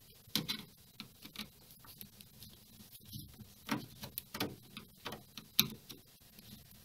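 Screwdriver working a screw at the edge of an old CRT TV's back cover: scattered irregular clicks and short scrapes, the sharpest click about five and a half seconds in.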